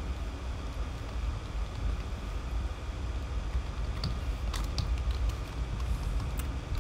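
Steady low room hum, with a few scattered clicks of computer keys from a little past the middle onward.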